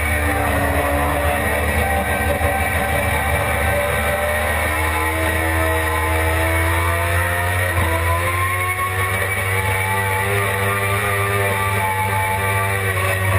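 Suzuki GSX-R600 inline-four engine at speed on track. The revs drop at the start, then climb slowly, with a gear change about eight seconds in, after which they climb again.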